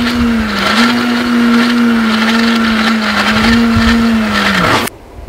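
Electric mixer grinder running at speed, grinding a thick ragi flour, banana, date and carrot mix with water into a smoothie. Its steady motor hum dips briefly twice as the load shifts, then sags in pitch and cuts off suddenly near the end as it is switched off.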